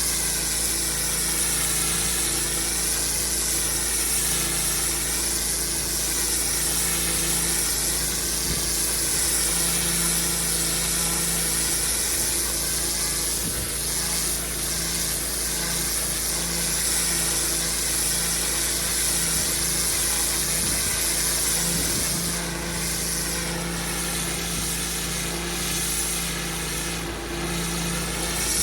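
Engine-driven pressure washer running steadily, with the continuous hiss of the high-pressure water jet cleaning block paving.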